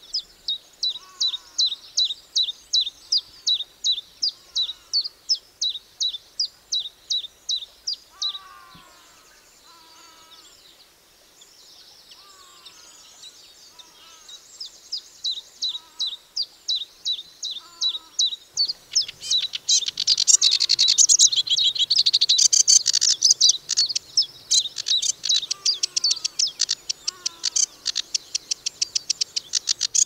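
Songbirds singing: one bird repeats a sharp, high chirp about three times a second, with softer, lower falling notes from another bird beneath. The chirping breaks off about eight seconds in, then returns denser and louder over a faint hiss from about eighteen seconds on.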